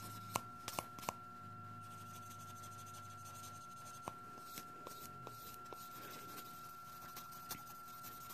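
Faint scratchy rubbing of a multi-grit nail file buffer worked up and down over a gel nail to smooth out file lines, with scattered light clicks as the file touches the nail and fingers, over a steady faint high tone.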